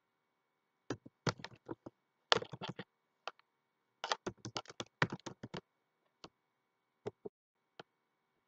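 Computer keyboard typing: several quick runs of keystrokes, then a few single clicks spaced out near the end.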